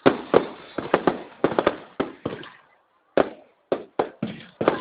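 Fireworks display: a rapid, irregular series of sharp bangs from bursting fireworks, each with a short echoing tail, with a brief lull about two and a half seconds in.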